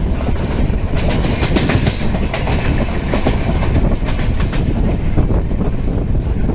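Train wheels running on the rails: a steady low rumble, with a run of rapid clicking and clatter over the rail joints from about a second in until about five seconds.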